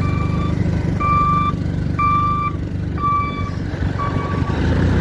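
Truck's reversing alarm beeping, five half-second beeps about one a second, over the steady low running of its engine.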